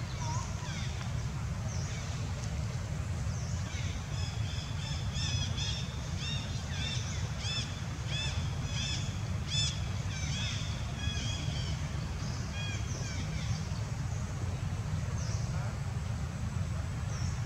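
Birds chirping: a run of quick, repeated high calls that starts a few seconds in and dies away after about ten seconds, over a steady low rumble.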